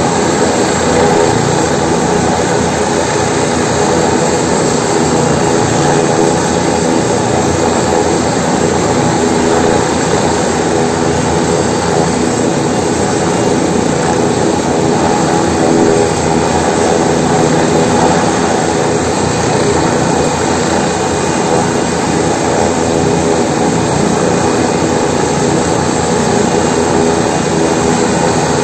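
AgustaWestland AW169 helicopter running on the ground before lift-off: its twin turboshaft engines give a steady whine over the noise of the turning rotor, holding an even pitch and loudness throughout.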